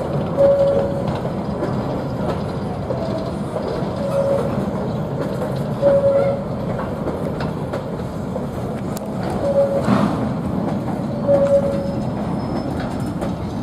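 Freight train wagons rolling past with a steady rumble and clacking over the rail joints, with several brief wheel squeals.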